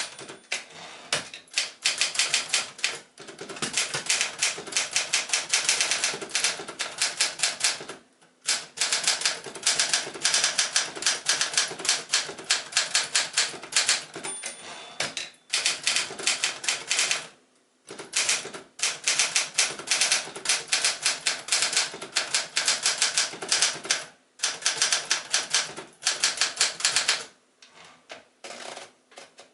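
1966 Adler Special manual typewriter being typed on: fast runs of key strikes with several short pauses, thinning to a few lighter strikes near the end.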